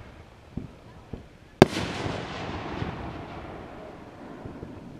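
Aerial firework shell bursting with one loud sharp bang about a second and a half in, after two faint thumps; the sound of the burst rolls on and fades over the next few seconds.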